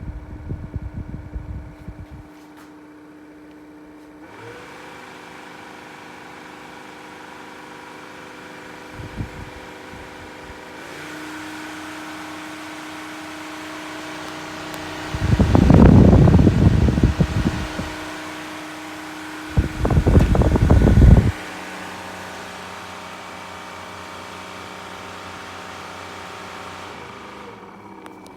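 Ryobi One+ 18V hybrid Whisper fan running with a steady motor whine. It is stepped up in speed twice and drops back near the end. Twice, for two or three seconds each, a loud, rough, low rumble rises over it.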